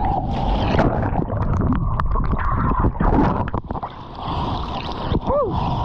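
Surf water rushing and splashing over a GoPro at water level on a bodyboard, a dense churning wash with sharp crackles of spray. It drops away briefly a little after the middle. Near the end there is a short squeal that rises and then falls.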